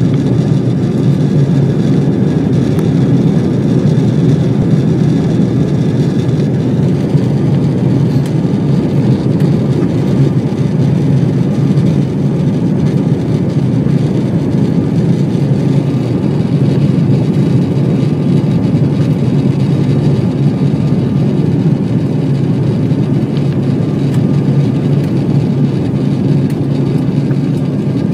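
Airliner cabin noise on the approach to landing: the steady rumble of the engines and rushing air heard from inside the cabin, with a faint high whine that fades out about six seconds in.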